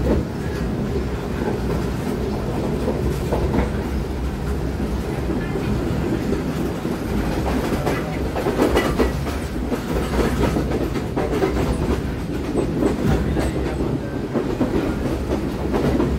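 Passenger train running along the track, heard from inside the carriage: a steady rumble with the rattle and click of the wheels over the rails.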